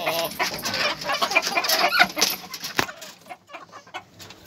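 Chickens clucking in a run of short calls, with a sharp knock about three seconds in, after which it grows quieter.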